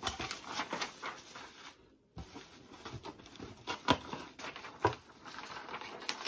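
Hands handling parts packaging: plastic bags and cardboard rustling and crinkling in irregular small clicks, with two sharp knocks about four and five seconds in.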